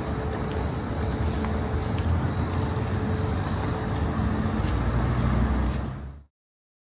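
Street traffic: cars driving past over a cobbled road, a steady rumble that grows a little louder as one passes close near the end, then cuts off abruptly about six seconds in.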